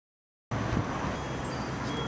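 Wind-driven sound maker (a home-made wind catcher that makes sound): a steady low rumble of moving air with a few faint, brief high ringing tones, starting about half a second in.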